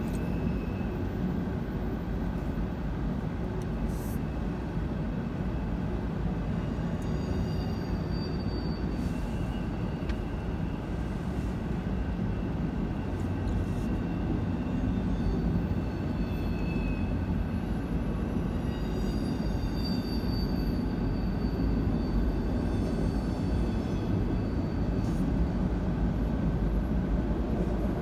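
Freight train cars rolling past a grade crossing: a steady rumble and clatter of steel wheels on the rails, with faint high wheel squeals now and then.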